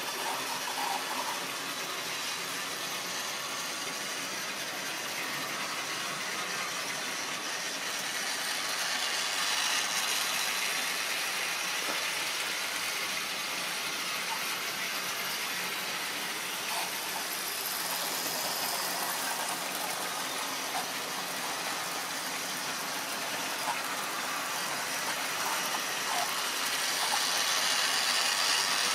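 Tri-ang model train running on the track: a steady mechanical whir of the locomotive's small electric motor and its wheels on the rails, getting louder near the end as the locomotive passes close.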